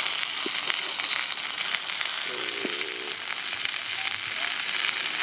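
Whole softshell turtle sizzling in a pot over a wood fire: a steady hiss with scattered crackles.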